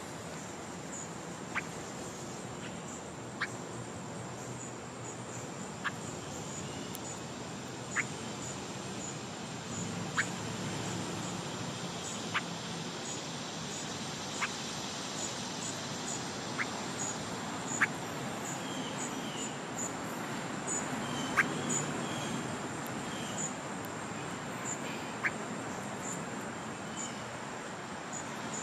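Wild songbirds calling: one gives short, sharp chip notes about every two seconds, with a few higher notes in the second half, over a steady high-pitched whine.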